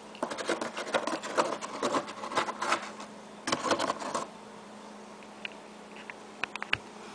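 Siamese cat scratching and pawing at the cardboard of a box: quick scratchy rustles for about three seconds, another short burst a little after the middle, then a few scattered taps near the end.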